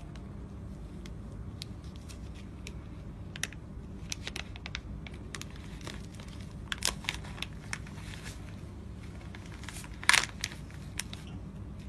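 Black plastic wrapping being cut with a knife and pulled apart: scattered crinkles, crackles and short rips, sparse at first and more frequent after a few seconds, with the loudest rip about ten seconds in, over a steady low hum.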